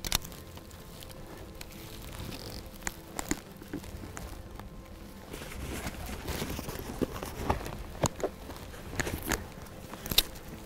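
Footsteps crunching through dry prairie grass, with rustling and knocking of a pack and bow carried along; uneven steps, busier in the second half, with a sharp knock at the start and another near the end.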